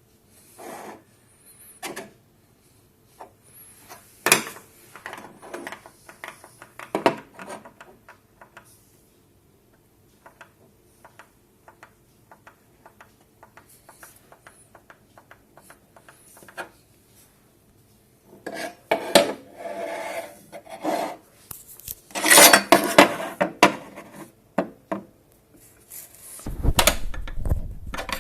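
Irregular scraping and rubbing with scattered clicks and knocks from hard objects being handled. The sounds are busiest and loudest in the last third, and a low rumble starts near the end.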